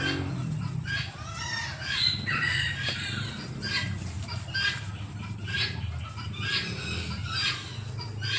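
A bird calling in short, repeated calls, about one a second, over a steady low hum.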